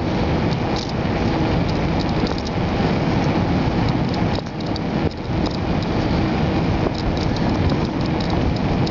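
Steady rush of wind and road noise on a bicycle-mounted camera while riding fast on smooth asphalt, strongest in the low rumble, with scattered light rattling ticks.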